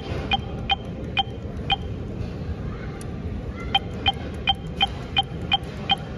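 Fare machine beeping with each button press as fare is added to a Clipper card: short identical beeps about three a second, in two runs with a pause of about two seconds between them, over a steady station hum.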